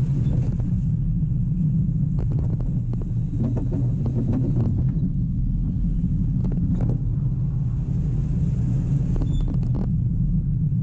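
Steel roller coaster car rumbling along its track, heard from a camera riding on the car, with scattered rattles and knocks.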